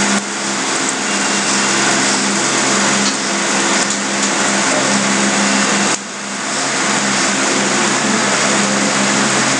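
A steady droning hum with a heavy hiss over it, machine-like and unchanging, dipping briefly about six seconds in.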